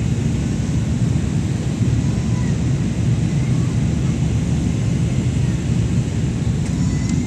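Steady low rumble of an airliner cabin in flight: engine and airflow drone at an even level. A couple of faint clicks come near the end.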